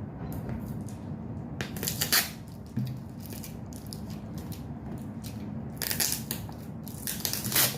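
Plastic packaging crinkling and rustling in several short bursts as the cookie jars are handled and unwrapped.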